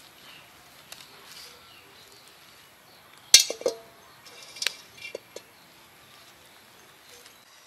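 Metal wok set down on stones over a wood fire: one loud clank with a metallic ring about three seconds in, then several lighter clinks and knocks as it is shifted into place.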